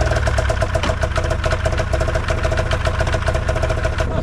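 Old snowmobile engine running steadily, having just fired up.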